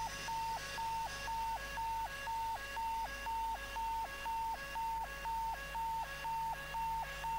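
Electronic two-tone warning sound, switching steadily between a higher and a lower note about twice a second.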